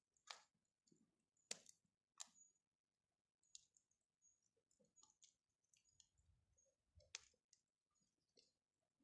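Faint wood fire crackling, with sparse, irregular sharp pops and clicks, a few louder ones early on and one about seven seconds in.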